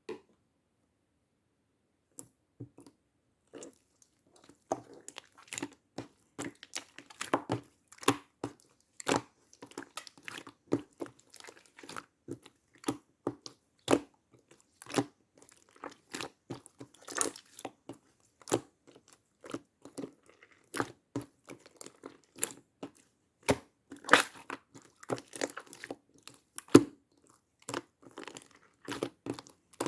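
Slime being pressed, poked and stretched by hand, making a dense, irregular run of sharp crackles and pops that starts about two seconds in.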